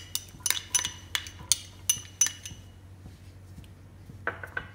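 Metal spoon clinking against a small glass bowl, about eight sharp ringing taps in quick succession, as chopped carrot is scraped and tapped out into a pan of water.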